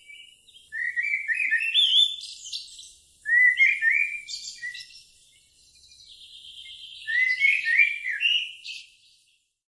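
A songbird singing: three separate phrases of quick chirping notes that step upward in pitch, each lasting one to two seconds, fading out near the end.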